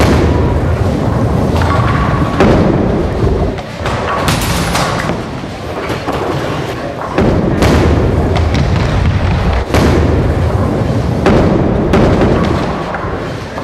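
Heavy thuds and booms over a steady low rumble, with several sharp hits spaced a few seconds apart, as in an edited bowling-ad soundtrack.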